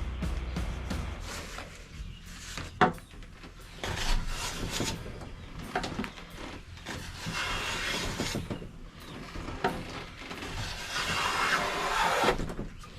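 Stanley No. 7 jointer plane being worked on wood: a few sharp clicks and knocks, then several long hissing strokes as the plane cuts shavings, the last stroke the loudest.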